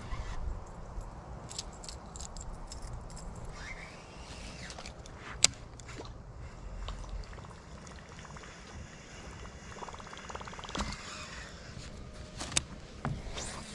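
A baitcasting rod and reel being worked to twitch a popper lure: scattered sharp clicks and ticks from the reel, with a short run of rapid ticking about ten seconds in, over a faint outdoor background.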